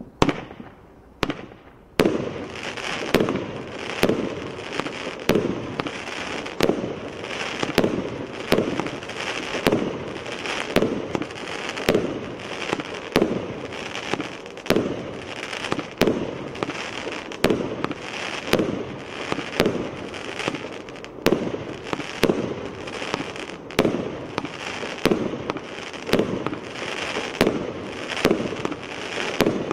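A 102-shot fireworks cake firing. After a quiet start with a single pop about a second in, the shots begin about two seconds in and go off in an even string, about three bangs every two seconds, with a continuous noisy fill between them.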